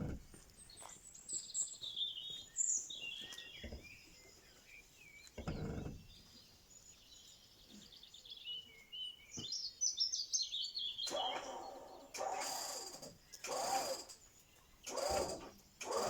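Small birds chirping and singing, quick high twitters. From about eleven seconds in, several short, louder bursts with a shifting pitch break in over them.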